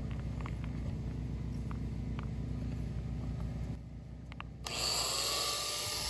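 A steady low rumble with faint light clicks, then about four and a half seconds in a loud, high-pitched power drill starts running, its pitch bending slightly as it works, as when drilling holes in logs for plug spawn.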